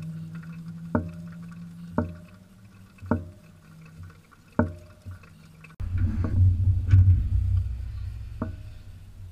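Drops of liquid falling in sharp, ringing plinks about once a second over a low steady hum. After a sudden cut about six seconds in, a vehicle engine runs with a low rumble.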